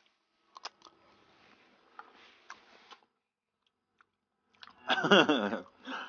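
Quiet chewing and the small clicks of spoons as two people eat bowls of ice jelly with fruit, then a short loud burst of a person's voice about five seconds in.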